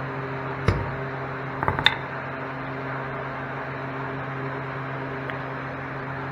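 Hammer blows on metal: one about a second in and a quick cluster of strikes near two seconds in with a brief metallic ring, the bent crash-damaged parts being knocked back into shape. A steady machine hum runs underneath.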